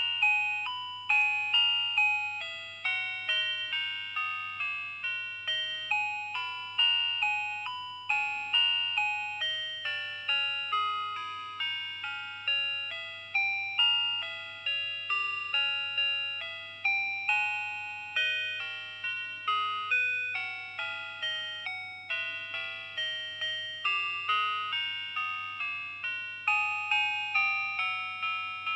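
Tempic talking melody watch playing one of its built-in electronic tunes through its dual-diaphragm buzzer: a continuous melody of short, sharp, fading beep notes stepping up and down, with a faint steady hum underneath.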